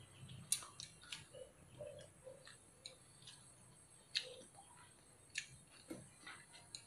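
Chopsticks and a spoon clicking lightly and irregularly against a metal bowl while noodles are eaten, with a few soft mouth sounds of eating in between.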